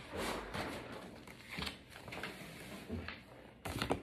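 Brown packing paper and a large poster being handled, rustling and crinkling in irregular bursts, louder near the end.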